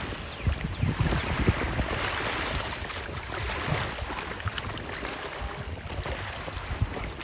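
Wind rumbling unevenly on the microphone over the steady wash of ocean surf on a beach.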